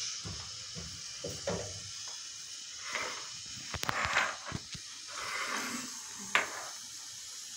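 Dishes and cookware being handled: a few light clicks and knocks with soft rustling, the sharpest click about six seconds in.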